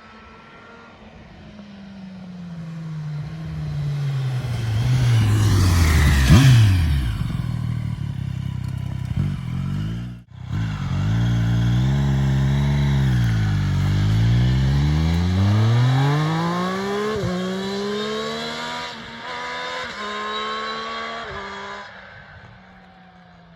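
2023 Triumph Street Triple 765 RS's 765 cc inline three-cylinder engine on a pass-by. It swells to a peak and drops sharply in pitch as the bike goes past about six seconds in, then fades. After a cut, the engine note sinks as the bike slows, then climbs through three quick upshifts as it pulls away and fades.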